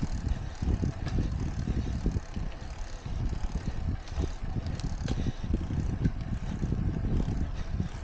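Wind buffeting the microphone of a moving bicycle as it rides along the road: a low, gusting rumble, with a few faint ticks and rattles from the bike.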